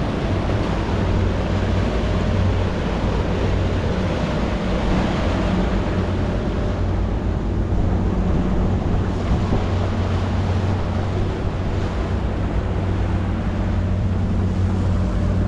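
Small cabin fishing boat underway: the engine drones steadily at cruising speed while water rushes past the hull and wind buffets the microphone.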